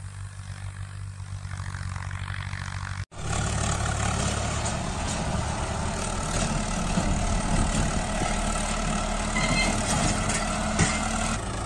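A steady engine-like running sound from a toy tractor, with low, evenly stacked tones. It gets louder after a cut about three seconds in.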